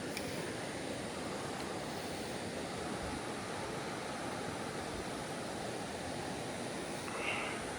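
Mountain creek water rushing steadily, with a brief sharper noise near the end.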